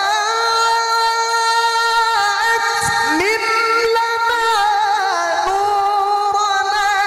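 Male Quran reciter (qari) chanting in melodic tilawah style through a microphone. One unbroken high held line, with quick ornamental turns about three and five seconds in.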